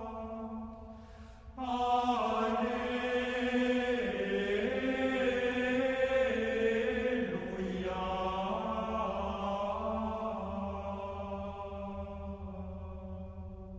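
Background music: a slow vocal chant of long held notes, with a brief break about a second in before the next phrase begins.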